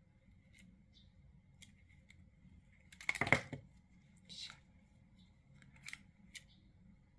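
Scissors cutting off the leftover end of a ribbon wrapped on a headband: one loud snip about three seconds in, made of a few quick strokes. A few faint clicks come before and after it.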